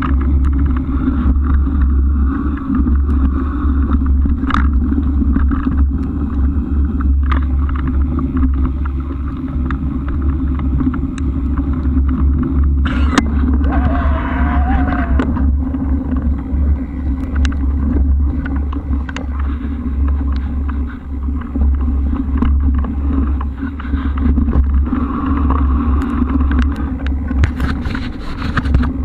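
Steady low rumble of wind buffeting and road noise on a camera carried by a moving bike, with occasional small clicks and a brief louder swell about halfway through.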